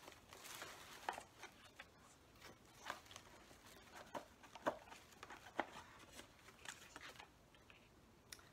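Faint rustles and light taps of a small gift box being opened and its wrapping handled, coming as scattered, irregular ticks.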